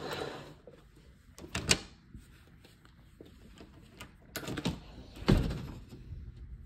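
A door being opened and closed, with clicks and knocks; the loudest is a heavy thump about five seconds in.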